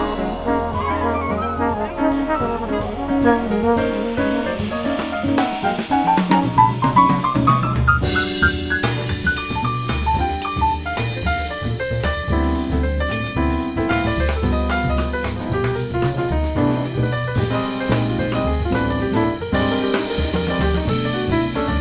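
Big-band jazz: brass and saxophones over a drum kit, with a quick rising run of notes about six to eight seconds in.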